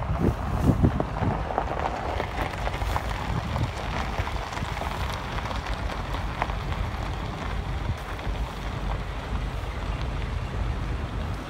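GL-class diesel-electric freight locomotive approaching with its train, a steady low engine-and-wheel noise, mixed with wind buffeting the microphone.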